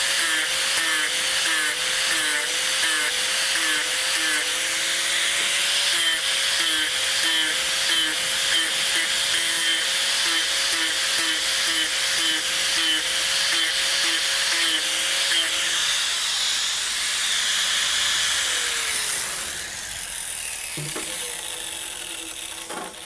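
Angle grinder with a 60-grit wheel grinding a wooden cane handle, its motor tone wavering as the wheel bears on the wood. About eighteen seconds in, the motor's pitch falls and the sound gets quieter as the grinder winds down.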